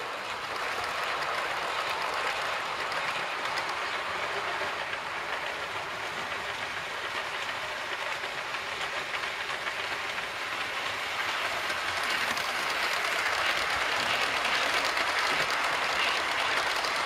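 Model trains running on a layout: a steady rolling rattle of small wheels clicking over rail joints and points, growing louder over the last few seconds as a train of coaches runs close by.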